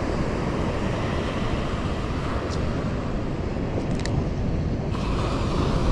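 Steady noise of ocean surf and wind on the microphone on a beach with big waves.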